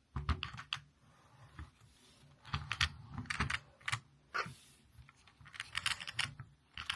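Irregular small clicks and taps of hands handling the RC car's plastic body shell and its retaining pins, with a few clusters of quick clicks.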